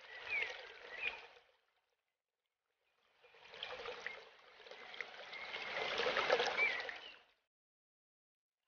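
Aquarium water trickling and splashing, heard in two stretches: briefly at the start, then again for about four seconds from about three seconds in. Each stretch cuts off suddenly into silence.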